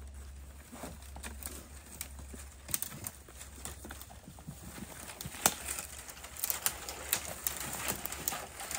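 Cut branches dragged through dry brush: irregular snapping and crackling of twigs, denser in the second half, with the loudest crack about five and a half seconds in.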